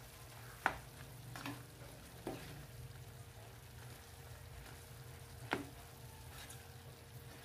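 Food sizzling faintly in a pan as it is stirred, with a few sharp clinks of a utensil against the pan.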